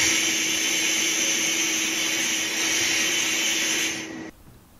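Abrasive blast cabinet nozzle blasting small steel screws and washers with compressed air and grit: a loud, steady hiss with a low hum under it, which stops about four seconds in.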